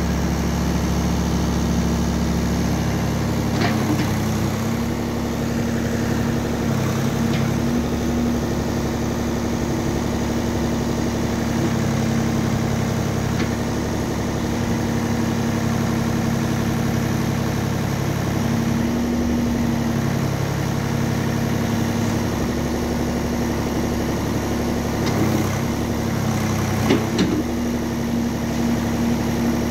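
Ford 555 backhoe loader's diesel engine running steadily as the backhoe arm is worked, its note shifting lower for a stretch in the middle. A few sharp metallic clanks near the end.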